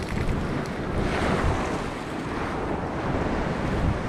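Steady rush of wind buffeting the microphone, mixed with ocean surf washing against the rocks.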